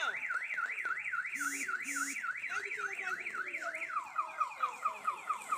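Multi-tone car alarm: a siren tone sweeping up and down about three times a second, switching about four seconds in to rapid falling chirps. Two short low beeps come about a second and a half in.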